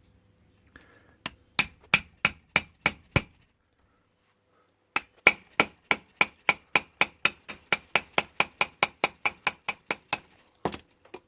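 Hammer tapping a pin punch to drive out the retaining pins of a brass Ilco padlock, sharp ringing metal taps. A run of about seven taps, a pause of nearly two seconds, then about twenty quicker taps at roughly four a second.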